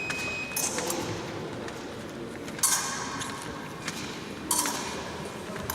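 Electric fencing scoring apparatus beeping for a touch, the tone cutting off about half a second in, then three short bursts of metallic clatter from épée blades and footwork.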